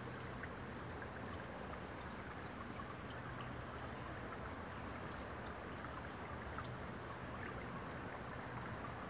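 Steady running water trickling, with a faint low hum underneath.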